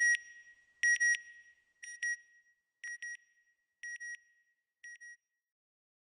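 Electronic beeps of a closing sound logo: a double beep repeated about once a second, six times, each pair fainter than the last until it fades out about five seconds in.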